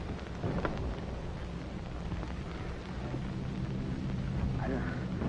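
Background noise of an old optical film soundtrack: a steady hiss with faint crackle over a low hum.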